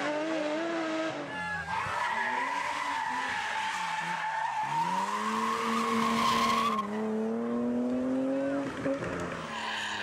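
BMW rally cars at full throttle, their engines revving up and down through gear changes, with a long tyre squeal in the middle that cuts off abruptly about seven seconds in.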